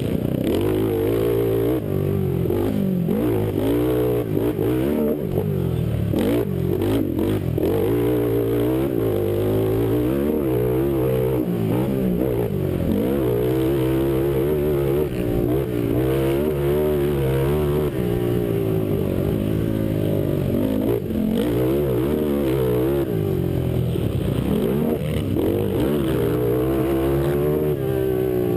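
A Honda motocross bike's engine revving hard and dropping back again and again as the rider accelerates, shifts and rolls off around the dirt track, heard close up from a helmet camera.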